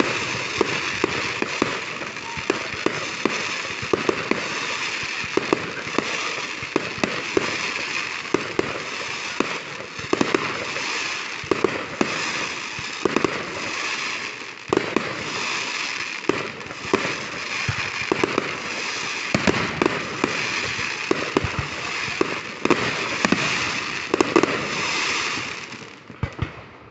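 Fireworks display: a continuous crackle from many shells, with frequent sharp bangs. It dies away near the end.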